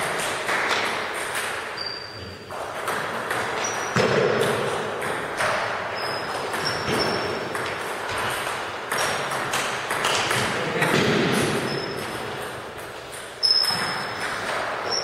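Table tennis balls clicking sharply off bats and the table during rallies, a string of irregular quick pings.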